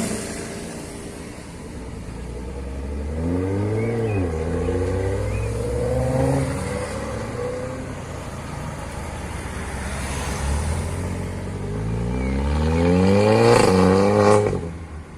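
Tuned car engine accelerating hard: its pitch climbs and drops sharply about four seconds in, then makes a longer, louder climb that peaks and cuts off near the end.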